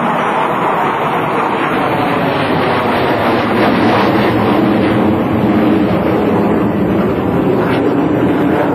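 Four F/A-18 Hornet jets flying in close formation overhead, their engines making loud, steady jet noise that swells a little about four seconds in.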